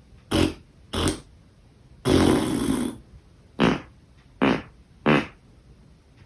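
A string of six fart sounds. Two are short, then a longer one of almost a second comes about two seconds in, followed by three more short ones.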